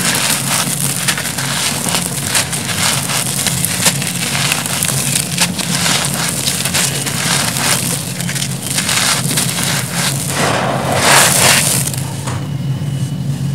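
Hands crushing and crumbling a dry lump of grey concrete into loose gravel and dust: a dense, gritty crunching with crumbs falling onto the heap. It grows louder for a second or so near the end.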